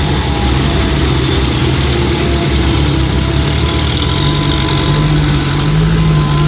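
Diesel engine of a Komatsu PC130-8 excavator running steadily, its pitch rising a little about four seconds in.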